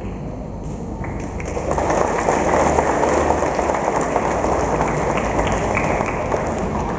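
Congregation applauding, the clapping swelling about a second and a half in and easing off near the end.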